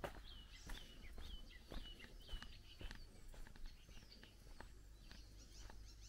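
Wild birds singing, a run of short repeated chirping notes followed by scattered chirps, over the steady footsteps of someone walking on a dirt forest path.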